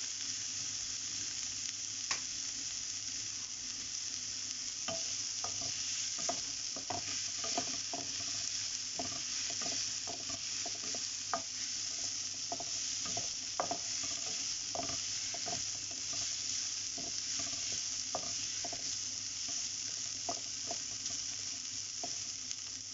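Chopped red onions sizzling in hot oil in a nonstick frying pan, with a wooden spatula clicking and scraping against the pan as they are stirred. The onions are being sautéed until they soften and turn light brown.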